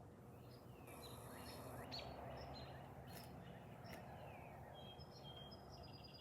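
Faint background noise with small birds chirping now and then, and a few short trills near the end.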